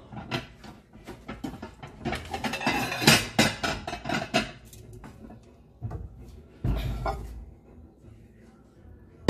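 Kitchen clatter of dishes and utensils: a quick run of clicks and knocks over the first few seconds, then a single dull thump about seven seconds in.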